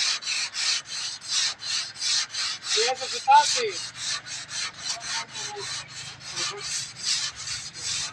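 Sandpaper rubbed by hand back and forth over a car's bonnet, sanding the body filler smooth before painting, in fast even strokes of about three to four a second. A brief pitched sound cuts in about three seconds in.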